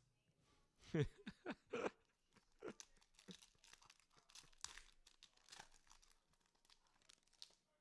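Plastic wrapper of a trading-card pack being torn open and crinkled. It starts with a burst of loud tearing crackles about a second in, then fainter crinkling and rustling continue.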